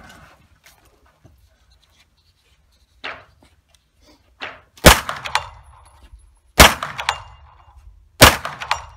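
Three shots from a Luvo LA-15 9x19 mm AR-style rifle fired from prone, evenly spaced about a second and a half apart, each ringing off the walls of an indoor range. Two quieter sharp knocks come before the first shot.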